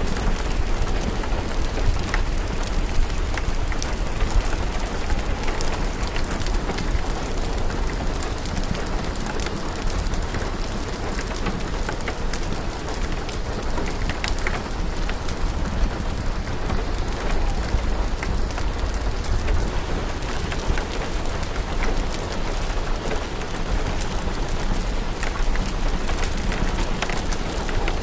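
Steady rain ambience with a deep low rumble underneath, dotted with scattered small sharp crackles of a log fire.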